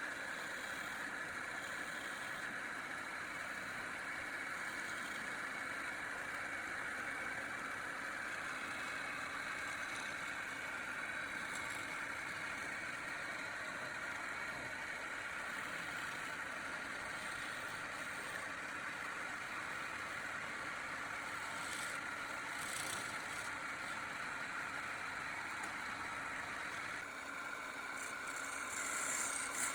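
A machine running steadily with an even, continuous noise.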